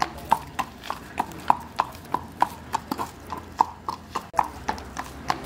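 Horse's hooves clip-clopping at a walk: a steady beat of sharp hoof strikes, about three to four a second.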